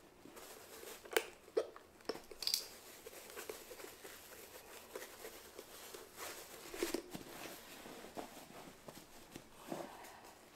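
Hands rubbing, pushing and stretching a wool felt hat hood over a hat block: faint handling and friction noise of the felt, with scattered small clicks and knocks.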